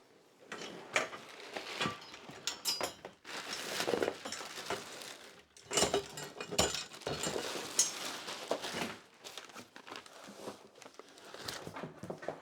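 Irregular rustling and crinkling of packaging with light clinks and knocks of parts being handled, as a boxed bike trailer is unpacked.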